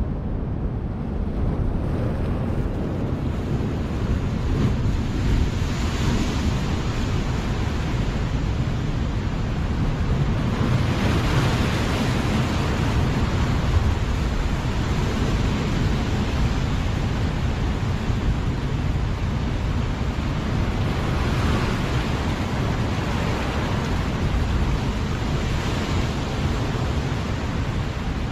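Ocean surf washing over a rock ledge, with louder swells of wash every few seconds, under a steady low rumble of wind on the microphone.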